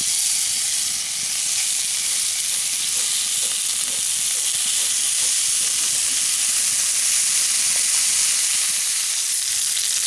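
Bacon-wrapped French toast rolls frying in a hot skillet: the bacon fat sizzles with a steady hiss and a few faint pops.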